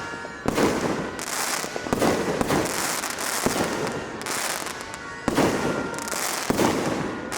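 Many fireworks and firecrackers going off together: sharp bangs every second or two over a constant crackle.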